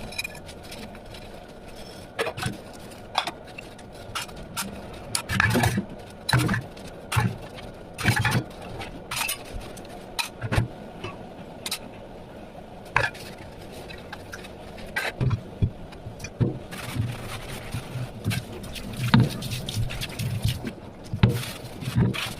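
Hand dishwashing: dishes and utensils clinking, knocking and scraping against each other at an irregular pace, over a steady background hiss.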